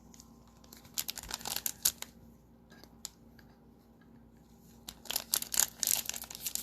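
Crinkly plastic trading-card pack wrapper being handled and torn open: a few crackles about a second in, then denser crinkling and tearing from about five seconds in.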